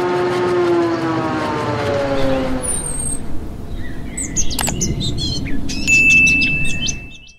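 Sound effects for a channel logo sting. A held tone with overtones slides down in pitch, then comes a flurry of short chirps and whistles and a sharp click. A bright held ding follows as the on-screen subscribe button is pressed and its bell lights, and the sound cuts off suddenly.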